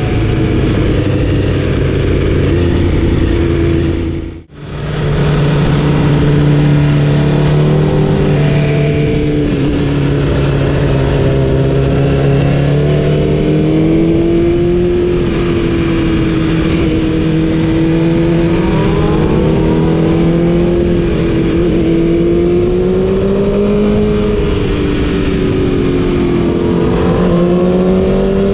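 BMW S1000RR inline-four sportbike engine through an Akrapovic exhaust while riding, its note holding fairly steady and drifting up and down in pitch with throttle. The sound drops out briefly about four and a half seconds in.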